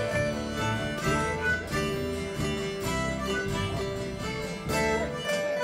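Live folk band playing an instrumental passage without singing: acoustic guitar and electric bass under accordion and harmonica holding long melody notes.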